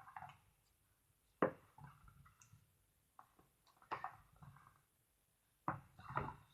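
Slime mixture with shaving foam being stirred in a container: a few sharp knocks of the stirrer against the container, the loudest about a second and a half in, with soft wet squishing between.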